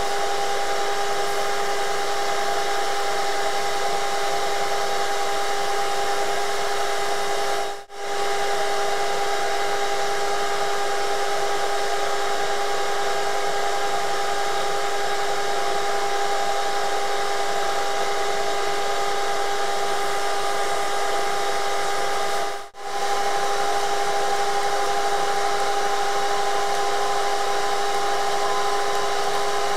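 Vacuum running steadily, sucking the air out of a plastic bag sealed over a speaker: a loud, even rush with a constant pitched hum. The sound drops out briefly twice.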